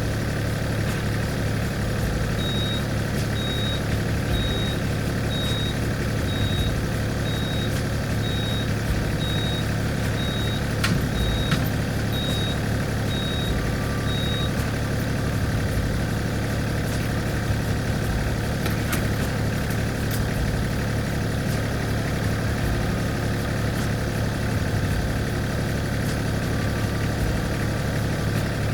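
Tractor engine running steadily at a low, even speed. A faint high beep repeats about once a second through the first half.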